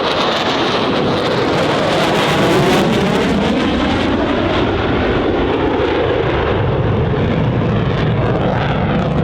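Jet noise from an EA-18G Growler's twin General Electric F414 engines making a high-speed pass and breaking away. The sound is loud and continuous, peaks about two to three seconds in, and has a sweeping, phasing tone as the jet goes by.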